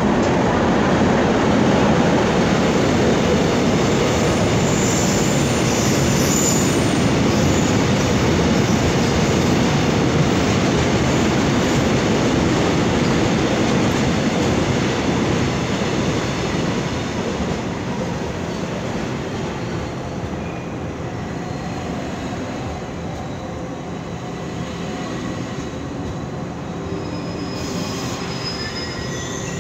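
KTX high-speed train rolling slowly past the platform: a steady rumble of wheels and running gear that eases off gradually over the second half, with faint wheel-squeal tones near the end.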